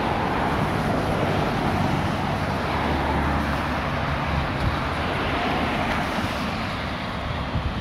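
Steady street traffic: cars driving past on a wet, slushy road, tyre noise with a deeper low rumble around three seconds in.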